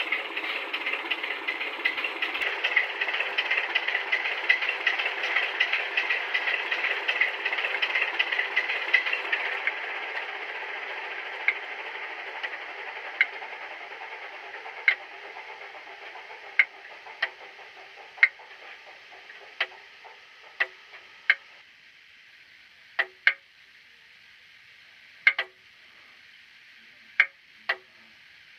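Class 27 diesel engine sound from a model locomotive's DCC sound decoder, played through its small speaker. The engine sound runs, then fades gradually and stops suddenly about two-thirds of the way in. Sharp clicks come every second or two through the second half, some in pairs, and carry on after the engine sound has stopped.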